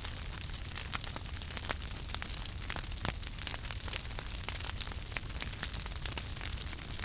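Fire crackling: frequent, irregular sharp pops and snaps over a steady hiss, with a low steady rumble underneath.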